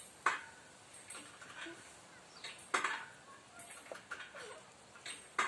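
A few sharp taps and knocks, the loudest three about two and a half seconds apart with fainter ones between, as a kitten bats a small toy football about on brick paving.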